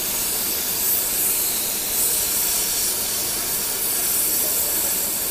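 Hot-air rework gun blowing a steady hiss onto a circuit board to melt the solder and lift off a surface-mount RAM chip.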